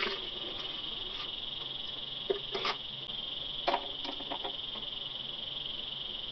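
Metal pot tongs clinking against a stainless steel saucepan as the pot is gripped and lifted off the gas burner: a few short metallic clicks about two and a half and four seconds in. A steady high-pitched whine runs underneath throughout.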